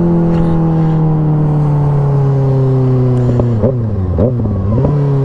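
Kawasaki Ninja ZX-6R 636's inline-four engine, fitted with an aftermarket M4 exhaust, running under way with its note falling slowly as the revs drop. About three and a half seconds in, the pitch dips and recovers a few times before settling.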